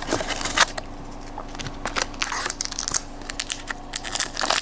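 Pokémon trading cards being handled as a stack, then the foil wrapper of a booster pack crinkling as it is picked up: scattered soft clicks and rustles, with denser crinkling near the end.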